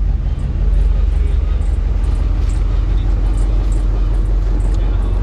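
A ship's engine runs at a steady idle, a low drone with no change in pitch. Faint light taps of footsteps on the wooden deck lie over it.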